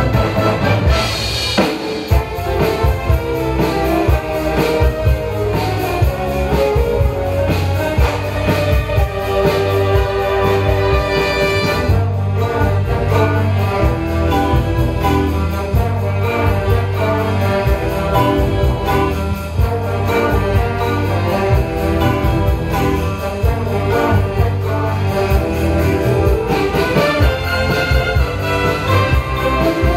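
Brass-led wind band playing a rock arrangement, with trumpets and trombones over a drum kit keeping a steady beat.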